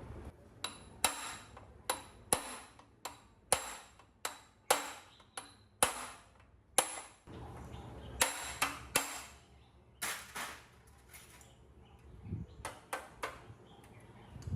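Metal being struck with a hammer: a run of sharp, ringing blows, about one or two a second, with a couple of short pauses.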